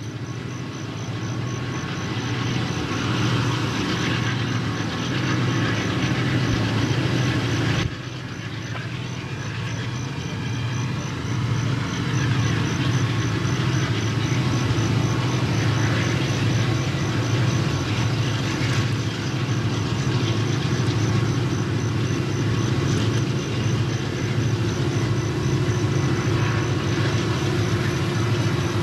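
Diesel freight locomotives running as they pull a train slowly along the track, a steady low engine drone with a short dip in level about eight seconds in.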